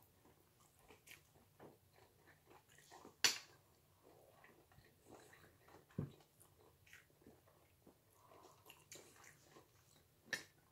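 A person chewing food, faint wet mouth noises and small clicks, with a sharper click about three seconds in and again near the end, and a dull knock about six seconds in.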